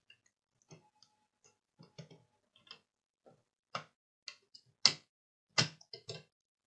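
Irregular light clicks and taps of fingers handling a small circuit board and its 40-pin header in a board-holder clamp, about ten in all, the loudest about five seconds in.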